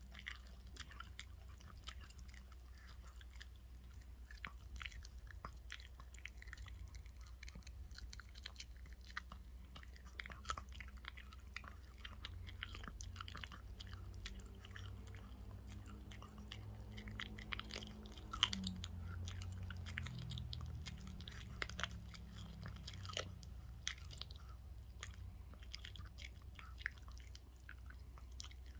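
Small white Pekingese dog chewing and gnawing raw chicken from a hand: irregular wet chewing clicks and occasional crunches. A low hum runs underneath, with a low pitched drone for several seconds in the middle.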